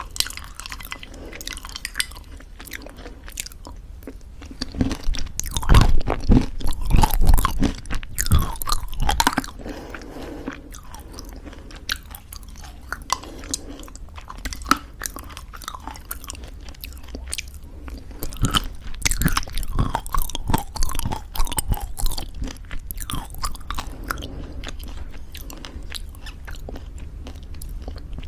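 Crunchy homemade granola in thick yogurt being chewed up close, with crisp crunches throughout that come loudest in bunches about six seconds in and again after the middle.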